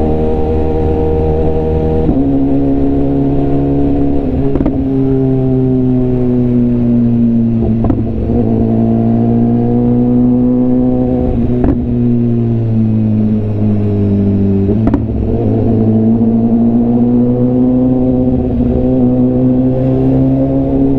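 BMW S1000RR inline-four engine and exhaust running under the rider at moderate revs, its pitch sliding slowly down and up with the throttle. A few short sharp clicks come through, roughly every three to four seconds, the last one as the pitch drops sharply and then climbs again.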